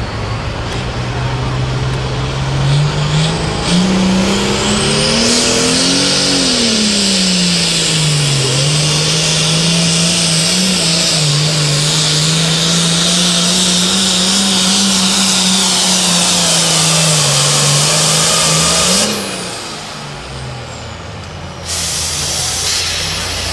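Turbocharged International diesel pulling tractor under full load, dragging a weight-transfer sled. The engine's pitch climbs over the first few seconds and dips once, then holds steady with a high turbo whine above it, and drops off sharply about 19 seconds in. After a cut near the end, a diesel tractor engine idles.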